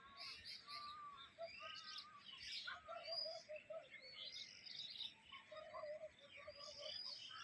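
Birds chirping and calling over one another: a steady chorus of many short, high chirps and whistles.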